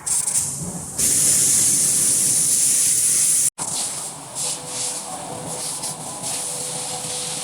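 CNC machining noise: a loud, steady spraying hiss, broken off abruptly about three and a half seconds in. After the break, a machine runs with a steady whine and intermittent hissing.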